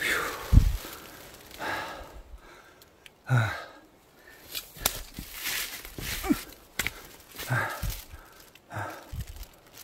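A hiker's heavy breathing, a loud breath about every second and a half, with footsteps on the wet forest floor.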